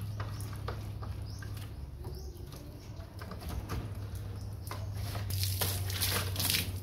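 Wet cloth wiping and rubbing over a chrome truck grille in short strokes, then water poured from a dipper splashing over the grille for about a second and a half near the end. A steady low hum sits underneath.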